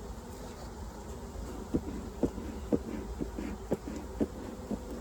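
Honeybees buzzing in a steady hum around an open hive. From about two seconds in, short sharp clicks come evenly, about two a second.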